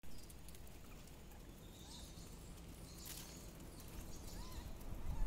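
Quiet open-air ambience with a low rumble and a few faint short arched animal calls, each rising then falling.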